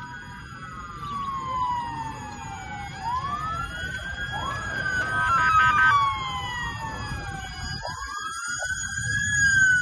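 Several emergency-vehicle sirens wailing at once, each slowly rising and falling in pitch and overlapping the others, with a short faster warble about five seconds in. A steady low rumble runs beneath.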